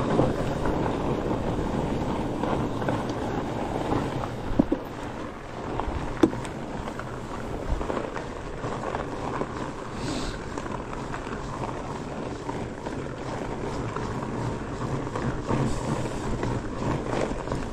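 Fat bike's unstudded tires rolling over icy snow, with wind noise on the microphone, and two sharp knocks about four and a half and six seconds in.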